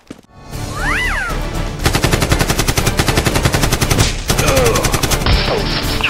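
Rapid automatic gunfire in two long bursts, the first about two seconds long and the second starting just after a short break about four seconds in, over music.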